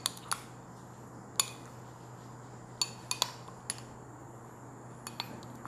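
A metal spoon stirring thick rojak sauce in a glass bowl, clinking lightly against the glass now and then: a few scattered short clicks.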